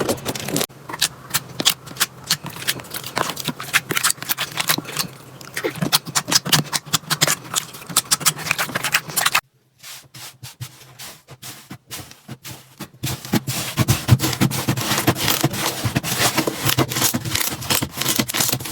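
Slime being pressed, squeezed and poked by hand, making quick crackling clicks and pops. The sound cuts out briefly about halfway through and comes back sparse before turning dense again.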